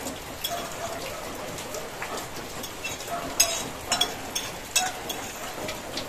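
Steady rain on a corrugated roof, with a few sharp clinks of spoons and serving utensils on plates and a steel pot between about three and a half and five seconds in.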